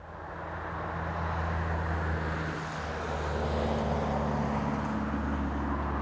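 Outdoor wind noise fading in over about the first second and then holding steady, with a low steady hum underneath.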